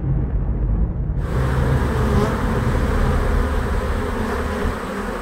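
A low rumble, then about a second in a dense buzzing of many honeybees on the comb starts suddenly and holds steady over the rumble.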